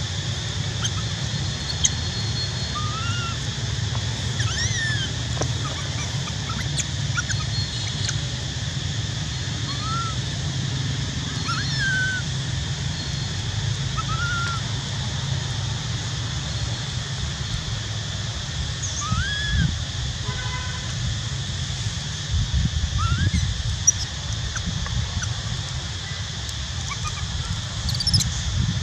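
Outdoor ambience: short high chirping calls come every second or two over a steady high hum and a low rumble.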